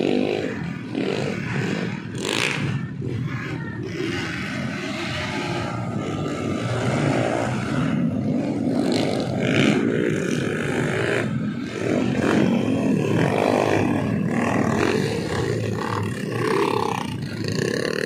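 Several motocross dirt bike engines revving hard through mud, their pitch rising and falling as the bikes pass.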